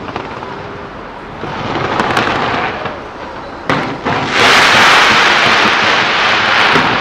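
Skyscraper New Year fireworks: a few separate sharp bangs over a steady background rush. Then, about four seconds in, a sudden loud dense crackling hiss from many effects firing at once, which holds to the end.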